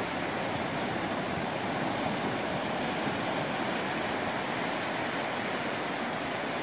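Sea surf breaking on a sandy beach: a steady rush of waves with no distinct single crashes.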